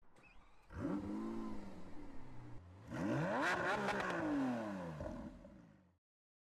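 Corvette Z06's 5.5-litre flat-plane V8 revving twice: a short blip about a second in, then a longer, louder rev that climbs and falls away before cutting off suddenly.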